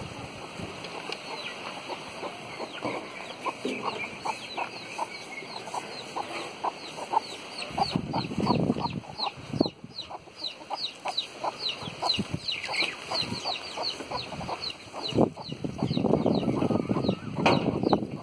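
Chickens clucking, with a steady string of short, high, falling chirps a few times a second. There are louder rushes of noise about eight seconds in and again near the end.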